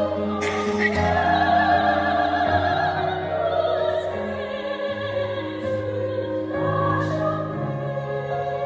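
A small church vocal ensemble singing a Christmas hymn in harmony, with vibrato on the held notes, over sustained instrumental accompaniment.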